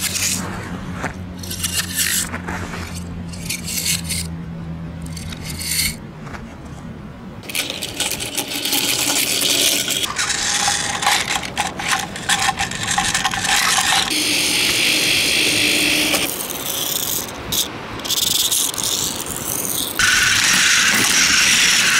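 Die-cast toy cars and plastic Plarail toy trains clattering and scraping against each other and over wooden boards, with the steady whirr of a battery-powered toy train running in the middle part. The sound changes abruptly several times.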